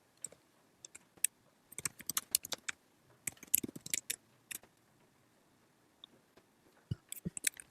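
Typing on a computer keyboard: short irregular runs of key clicks with pauses between them.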